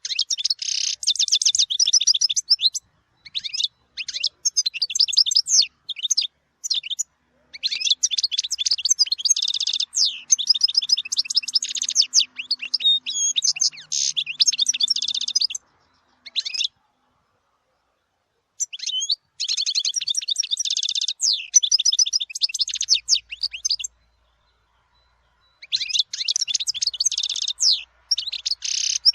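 European goldfinch singing: long bouts of fast, twittering song, each several seconds long, broken by a few short silent gaps.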